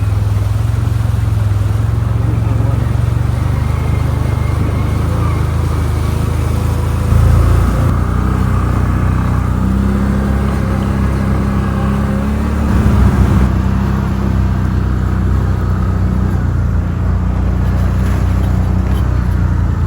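CFMOTO ATV engine running steadily under way, its note shifting, with two brief louder surges about seven and thirteen seconds in.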